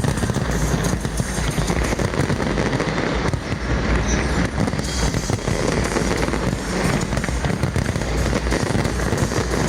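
Fireworks going off in a dense, continuous barrage of bangs and crackling, with music playing underneath.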